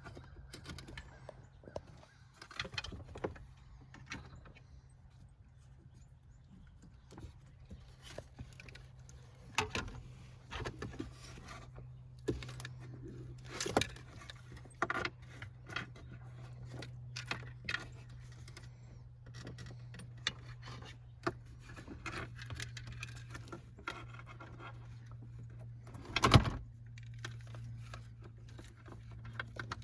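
Clinks, rattles and scrapes of wiring, connectors and tools being handled inside a car's cabin, with a steady low hum underneath. One louder knock comes near the end.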